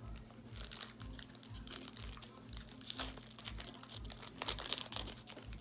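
Foil wrapper of a Pokémon trading-card booster pack crinkling in the hands as it is opened, with many small crackles.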